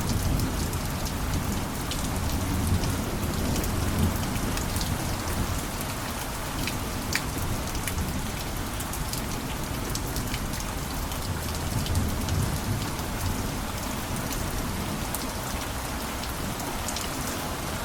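Steady rain falling, with individual drops ticking close by and a low rumble underneath that is strongest near the start.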